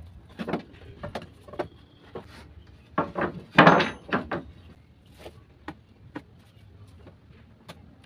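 Loose wooden planks being shifted and set down on a wooden bench frame: a run of wooden knocks and clatters, loudest in a cluster about halfway through, then a few lighter taps.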